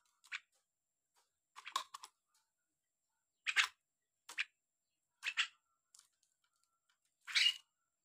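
Caged javan myna (jalak kebo) giving a string of short, harsh chattering calls, about seven of them spaced roughly a second apart, the loudest near the end.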